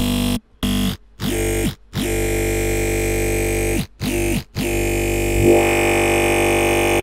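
Synthesized dubstep bass patch from FL Studio's Patcher, played as low held notes broken by short gaps. Its tone sweeps as the macro knob is turned, with a rising sweep near the end.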